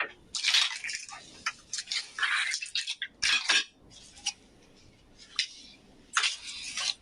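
Handling noise: irregular clicks, light knocks and short rustling bursts as objects are moved about.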